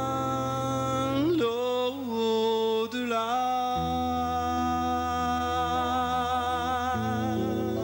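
Live band music with electric guitar: a long held lead note with vibrato and a few pitch bends, over bass notes that change three times.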